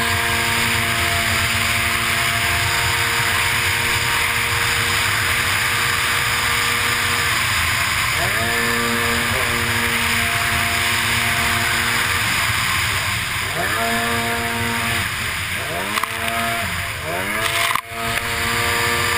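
Racing runabout jet ski engine running at high revs over a steady rush of water and wind. The engine note drops and climbs back a few times, about halfway through and again twice near the end.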